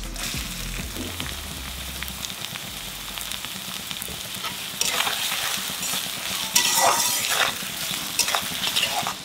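Sliced shallots sizzling in hot mustard oil in a steel karahi, with a steady frying hiss. In the second half a metal spatula scrapes and stirs against the pan in several short bursts.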